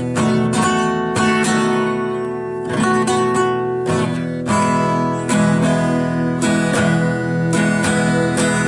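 Acoustic guitar being strummed, chords ringing with several strokes a second.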